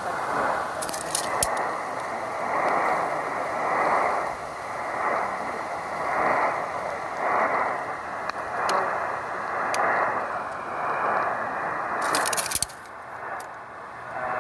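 Radio receiver static: a hiss that swells and fades about once a second, with scattered crackles and clicks. A dense burst of crackle near the end is followed by a sudden drop in the hiss.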